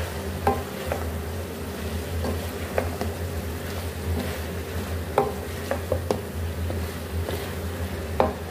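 Wooden spoon stirring shredded cabbage, chicken and vegetables as they stir-fry in a metal pan, with irregular scrapes and knocks of the spoon against the pan over a steady low hum.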